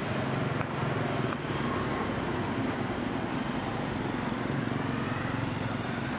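Steady street traffic: a constant hum of passing motor vehicles' engines, with no single vehicle standing out.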